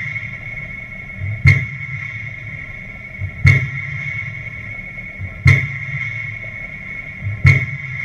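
Pile-driving noise: sharp hammer strikes evenly spaced about two seconds apart, four in all, each with a smaller knock just before it. A steady hum of several fixed tones runs underneath.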